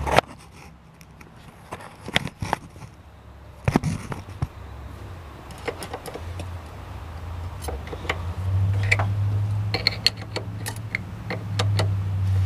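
Metal clicks and taps of a wrench on the brake line fittings at a master cylinder as the lines are straightened and tightened during bleeding. A low steady hum swells beneath the clicks about two-thirds of the way in.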